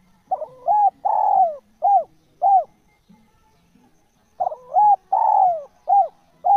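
Spotted dove (tekukur) cooing: two phrases about four seconds apart. Each phrase is a quick pair of coos, one longer drawn-out coo, then two short coos.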